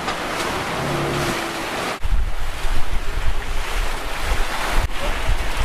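Sea water rushing and breaking along a sailing catamaran under way in choppy seas, with wind buffeting the microphone. About two seconds in, the sound cuts to a louder, gustier stretch with a low wind rumble.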